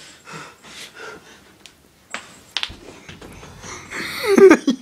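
Faint rustling and a couple of sharp knocks, then near the end a loud, short, breathy vocal cry whose pitch bends quickly up and down.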